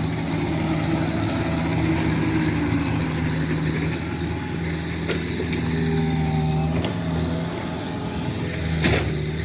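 Excavator engine running steadily at a constant pitch while it grades, with a couple of short knocks, one about five seconds in and a louder one near the end.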